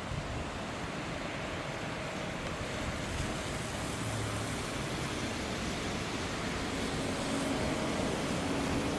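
Steady rushing noise of road traffic and wind, with no siren sounding; a faint low engine-like hum comes in near the end.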